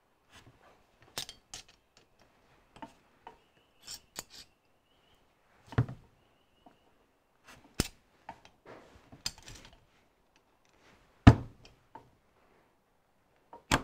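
Hex Allen key working screws inside a steel dividing head housing: scattered metal clicks, taps and light scrapes as the key is fitted and turned. The loudest knocks come about six, eight and eleven seconds in.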